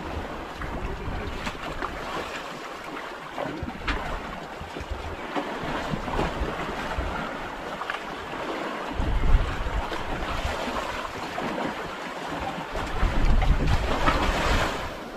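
Wind blowing across the microphone over sea water washing against a small boat. Stronger gusts come about nine seconds in and again near the end.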